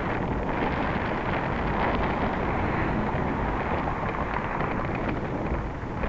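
Wind buffeting the microphone of a camera riding on a moving bicycle: a steady rush with heavy, uneven low rumble.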